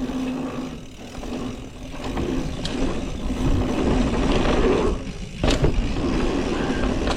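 Mountain bike riding fast down a dirt jump trail: tyres rumbling over the dirt, the bike rattling, and wind rushing over the microphone. It goes briefly quieter about five seconds in, then a sharp knock follows, fitting the bike landing a jump.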